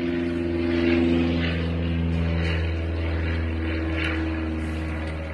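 A steady, low mechanical drone with a pitched hum, swelling about a second in and then slowly fading.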